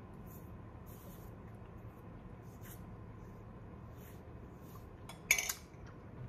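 A drink sucked through a straw from a glass: faint, short sips and slurps a few times over, then a louder short sound a little after five seconds in.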